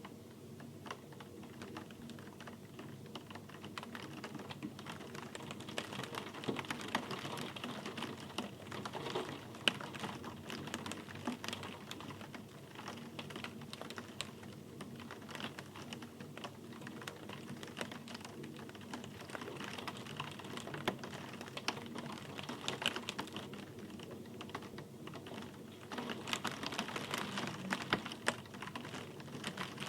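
Rain falling with dense, irregular drops clicking and pattering on a hard surface, getting a little louder near the end.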